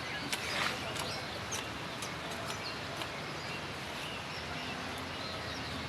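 Small birds chirping now and then in short high calls over steady outdoor background noise, with a few faint clicks.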